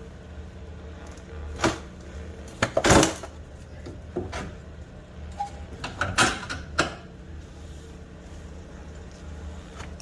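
Metal knocks and clanks from suspension parts and hand tools being handled while fitting a strut. There are several separate knocks; the loudest is a quick cluster about three seconds in and another comes around six seconds, all over a steady low hum.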